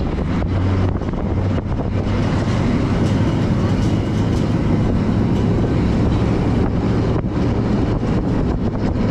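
Hydra-Terra amphibious tour vehicle's engine running steadily as it drives on the road, a constant low hum under road and air noise in the open passenger deck.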